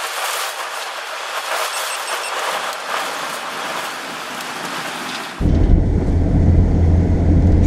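Storm-force wind rushing through roadside trees and past a moving car, a steady hiss. About five seconds in it gives way abruptly to a heavy low rumble of wind and road noise heard inside the car as rain hits the windshield.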